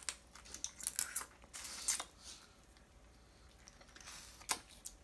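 Close-up eating sounds of crab being eaten by hand: wet lip smacks, sucking and chewing clicks, irregular and busiest in the first two seconds.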